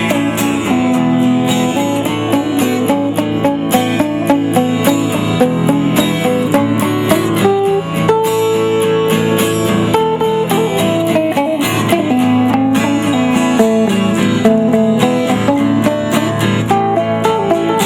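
Rock band playing an instrumental break with no singing, guitar to the fore over a steady beat.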